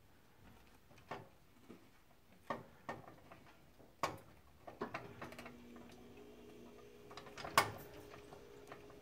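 Aluminium pressure-canner lid being twisted shut on its pot: scattered light metal clicks and knocks, the loudest about three-quarters of the way through. A faint steady hum comes in about halfway.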